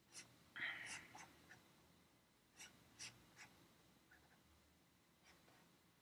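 Faint scratching strokes of a drawing tool sketching lines. There are about eight short strokes, and the longest is near the start.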